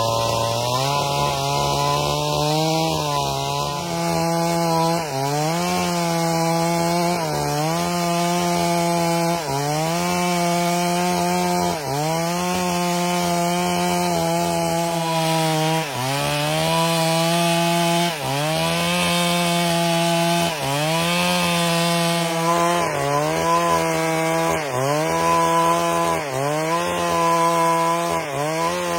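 Chainsaw running under load, ripping lengthwise through a log to cut boards; the engine note sags and recovers about every two seconds as the chain bites into the wood.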